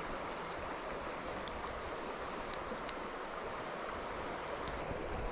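Steady rush of a shallow river flowing over stones, with a few faint small clicks.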